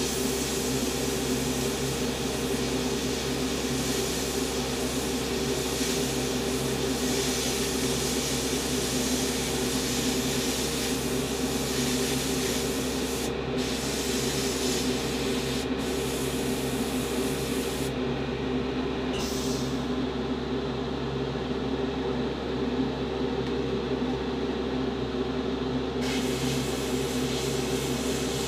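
Airbrush hissing as it sprays lightened RLM 66 grey paint onto model cockpit parts, over a steady low machine hum. The spray breaks off twice briefly around the middle, then stops for several seconds apart from one short puff, and starts again near the end.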